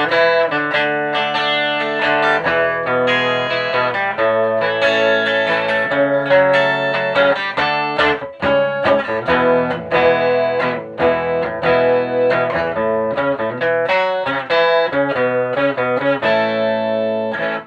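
Electric guitar played through a 1965 WEM Control ER15 valve amplifier head with push-pull EL84 output valves, chords and picked notes ringing out continuously until the playing stops abruptly at the end.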